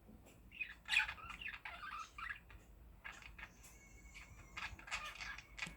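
Budgerigars chattering in quick runs of short, high chirps, one spell about a second in and another near the end, with a thin warbling whistle between them.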